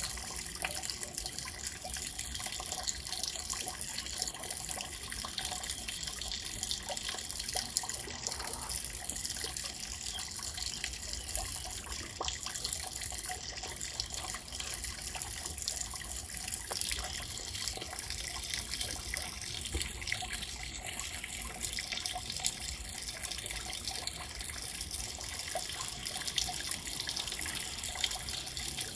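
Steady rain falling, a dense even patter of many small drops with no break.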